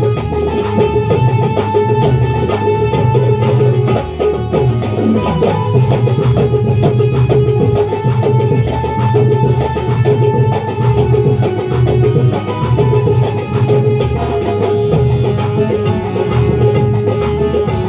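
Loud song playback for a sound-system sound check: a deep bass beat pulsing steadily under drums and a held high tone.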